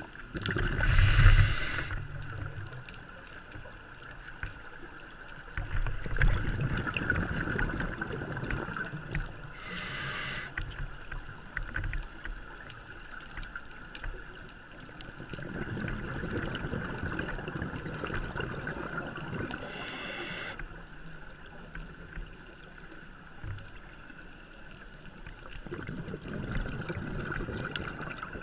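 A scuba diver breathing underwater through a regulator in a slow, regular cycle. A short hiss comes about every ten seconds, three times, with rumbling, bubbling stretches between.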